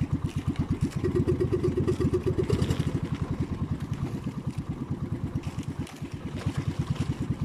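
Small inboard engine of an outrigger fishing boat running steadily at low speed, a rapid, even putter of thumps.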